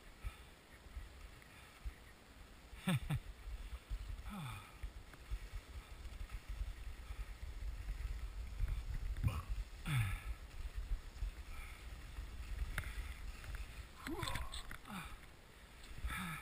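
Skis sliding and scraping over packed and rutted snow, with a steady low rumble of wind and movement on the body-mounted camera's microphone. About half a dozen brief sounds dropping in pitch cut through it.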